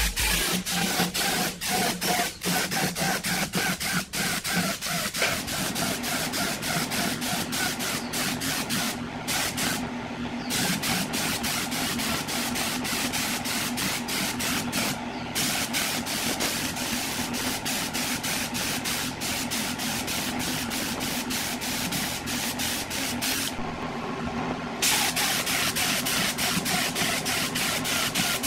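Compressed-air paint spray gun hissing as it sprays, cutting out briefly a few times when the trigger is let go, the longest pause near the end. A steady machine hum runs underneath.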